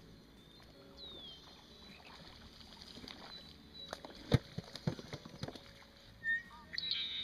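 Knocks and clatter of a small plastic cooler being handled and its lid shut, the loudest knock about four seconds in and a few lighter ones after it. Birds chirp faintly now and then.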